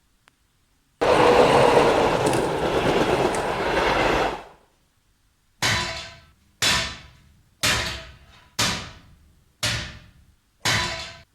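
A sudden loud rush of noise lasting about three and a half seconds, then six sharp ringing strikes, about one a second, like metal being hit.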